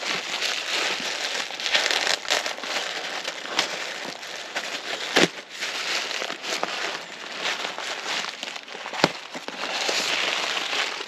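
Packaging crinkling and rustling continuously as a mailed package is unwrapped, with two sharp snaps about five and nine seconds in.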